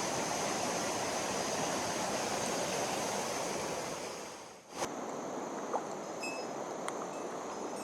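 Steady rush of a rain-swollen mountain stream. It briefly cuts out a little over four seconds in, then carries on slightly quieter with a few faint high chirps.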